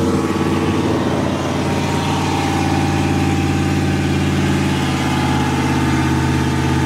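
Pickup truck engine running hard at a steady, held pitch while the truck spins its rear wheel in a burnout.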